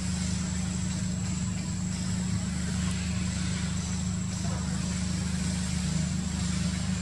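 A steady low mechanical drone, even in level throughout.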